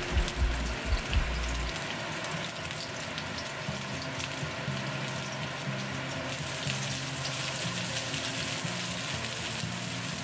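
Sliced onion sizzling in hot oil in a nonstick wok: a steady frying hiss with fine crackles, turning brighter about six seconds in as the onion is stirred with a silicone spatula.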